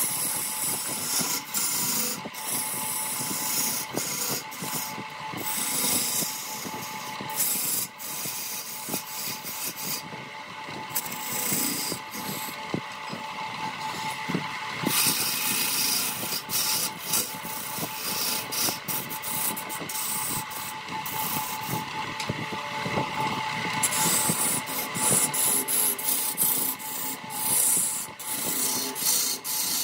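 Wood lathe running while a tool works the spinning wood: a continuous scraping, rasping sound over a steady whine, the scraping easing off briefly a few times.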